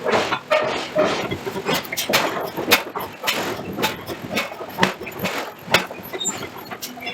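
Forging hammer striking metal again and again, sharp blows at uneven spacing with a few louder strikes among them.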